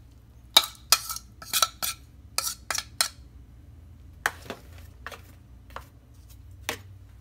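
Metal spoon clinking and scraping against a bowl while thick spiced marinade is spooned out onto the meat. There is a quick run of about nine sharp clinks in the first three seconds, then a few scattered taps.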